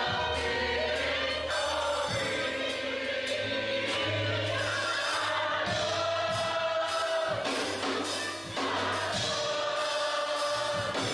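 Gospel choir singing over bass and drums.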